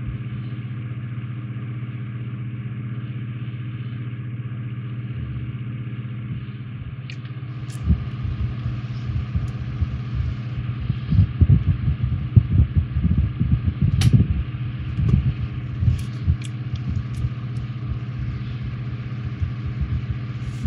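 Steady low hum, with irregular knocks, taps and a few sharp clicks from about eight seconds in as a plastic model part and tweezers are handled on the work table.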